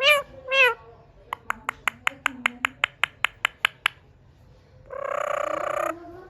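Indian ringneck parrot giving two short wavering meow-like calls, mimicking a cat. This is followed by a run of about a dozen sharp clicks at roughly five a second. Near the end comes a harsh squawk lasting about a second.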